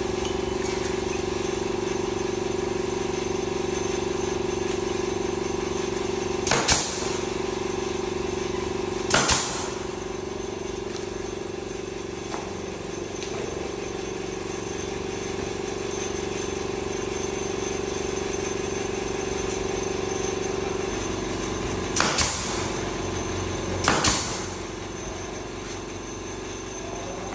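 Portable JET air compressor running with a steady hum whose tone shifts about three-quarters of the way in, and a pneumatic nailer firing four sharp shots, two about a quarter of the way in and two near the end, nailing wood trim onto a teak door.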